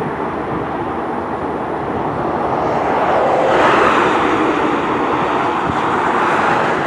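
Pickup trucks driving past close by, their tyre and engine noise swelling about three and a half seconds in, over the steady sound of an airliner's engines running across the airfield.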